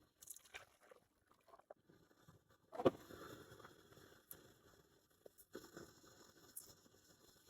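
Faint kitchen work: a few light clicks, then a sharp knock about three seconds in and another a few seconds later, with a low steady hiss between them.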